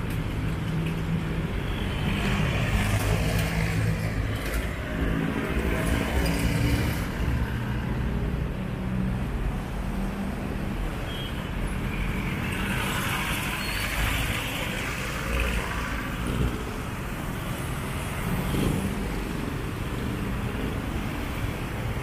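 City street traffic: motor vehicles driving past, with a steady low engine hum in the first few seconds and two louder swells as vehicles go by.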